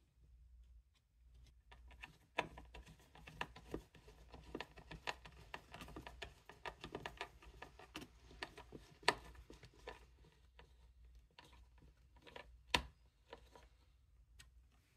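Small screwdriver turning tiny screws into brass box hinges on a wooden box: a run of quick, irregular light clicks and ticks, with two sharper clicks in the second half.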